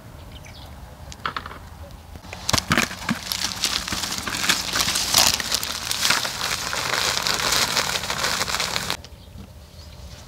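Loud crinkling, crackling rustle of something being handled, starting a couple of seconds in and cutting off abruptly about a second before the end.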